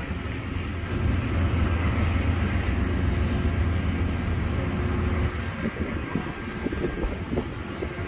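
Train passing, with a steady low rumble that drops away about five seconds in. Uneven low buffeting follows.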